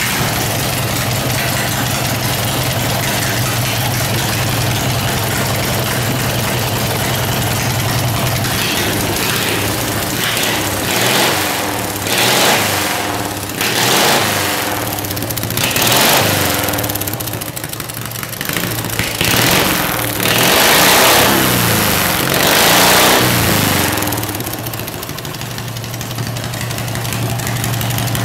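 Briggs and Stratton twin-cylinder lawnmower engine, just started on its own with the choke tied back, idling steadily, then revved in a string of short blips that rise and fall, before settling back to idle near the end.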